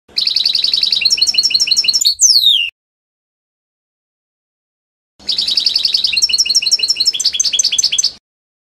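European goldfinch singing two phrases of rapid twittering, each two to three seconds long, built of fast repeated chirping notes at about seven a second. The first phrase ends in a quick falling slurred note, and the two are about two and a half seconds apart.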